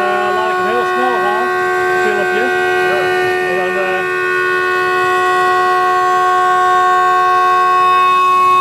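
CNC router spindle running with a steady, loud multi-tone whine while milling a wooden guitar neck; over the first four seconds some wavering tones come and go under the whine.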